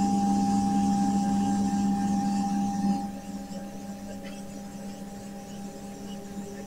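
DIY CNC mill's axis drive motors moving the machine at a steady speed: a steady motor whine over a low hum. It is loud for about the first three seconds, then drops to a quieter level.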